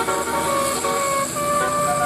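Bus telolet 'basuri' musical horn playing a tune of held notes that step up and down in pitch.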